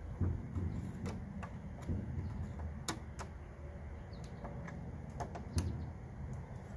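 Screwdriver tip clicking and scraping against small metal parts, working a retaining clip off the drive gear shaft of a self-propelled mower's transmission. The clicks are irregular, the sharpest about three seconds in.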